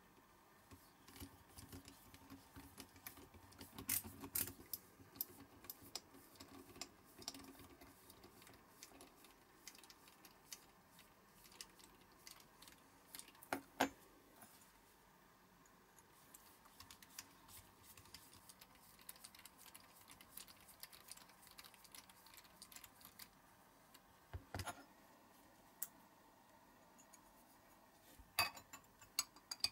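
Light clicks and taps of a small die-cast metal toy part and a hand pin vise being handled and set down on a cutting mat. A few sharper knocks stand out among them, one about 14 seconds in and a cluster near the end.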